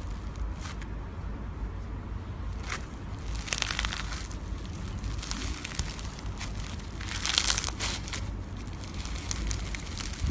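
Slime being squeezed and pressed by hand, giving clusters of small crackling, crunching clicks, loudest about seven seconds in.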